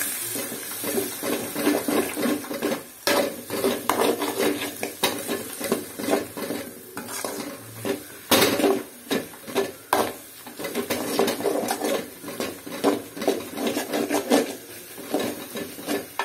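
Slotted metal spatula scraping and knocking irregularly against a metal kadai as egg, onion and carrot are stirred, over a light sizzle; the egg is catching on the bottom of the pan.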